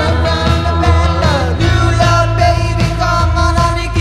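Rock band playing with a voice singing over bass, electric guitar and steady drum hits.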